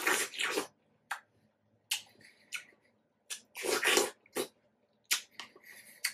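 Close-miked mouth sounds of eating juicy watermelon: a string of short, wet bites, slurps and chews, the loudest cluster about four seconds in.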